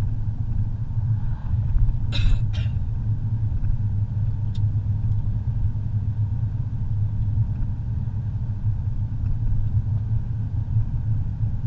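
Steady low rumble of a car's engine and tyres on a paved road, heard from inside the cabin, with two brief sharp noises about two seconds in.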